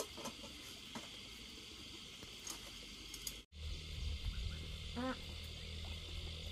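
Insects buzzing steadily, with a few light clicks of bowls and chopsticks. After a sudden break about halfway through, a low steady hum comes in, and a caged bird gives one short call about a second and a half later.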